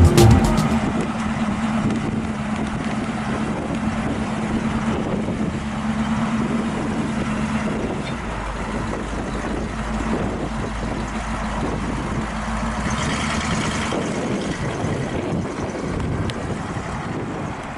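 Chevrolet 350 V8 in a 1962 Dodge D100 panel truck, running steadily as the truck drives away.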